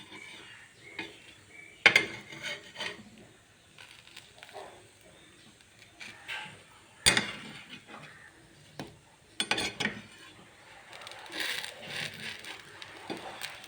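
Kitchen utensils clattering against cookware: sharp clinks and knocks about two, seven and nine and a half seconds in, then a longer noisy stretch of stirring near the end.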